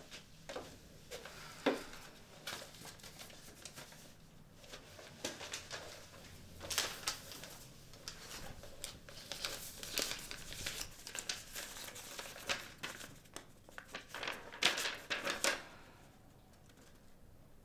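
Paper crinkling and rustling as an envelope is handled, opened and a letter unfolded, in a run of irregular crisp crackles that stop about two seconds before the end.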